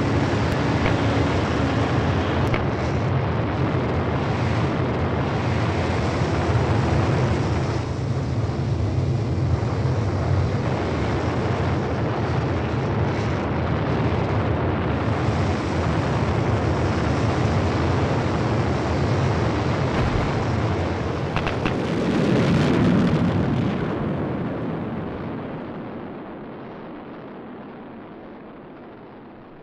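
Rocket thrusters of a Mars sky-crane descent stage firing with a steady, heavy rumble. It swells about 22 seconds in, with a few sharp clicks around then, and fades away as the stage flies off.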